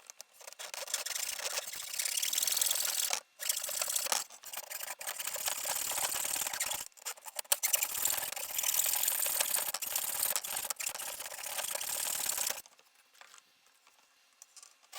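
A handheld hacksaw blade, with no saw frame, cutting back and forth into a fiberglass fairing: a steady rasping with a few brief pauses, stopping a couple of seconds before the end.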